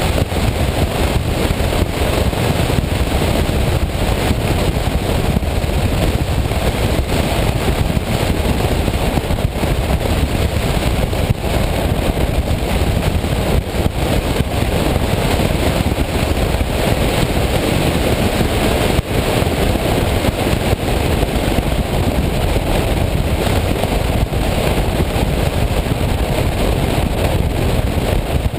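Steady wind rush over a camera mounted on the outside of a City-EL, a small single-seat electric three-wheeler, mixed with road noise from its tyres on a wet road while it drives along at steady speed.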